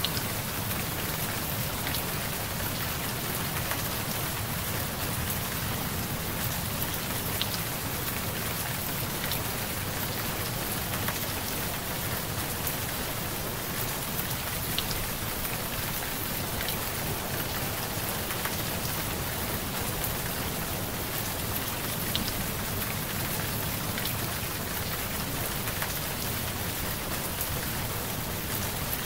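Steady rain, an even hiss with scattered drop ticks, running as a background track.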